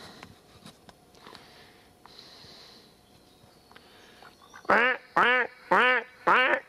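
Pet duck quacking: four loud quacks about half a second apart, starting late, each rising and falling in pitch.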